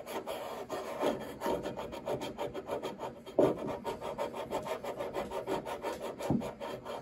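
Sandpaper, 220-grit sticky-back on a hard flat backing, rubbed back and forth in rapid, rhythmic strokes over the old shellac finish on rosewood, a few strokes louder than the rest. It is levelling the melted-in original finish before the shellac and alcohol of French polishing.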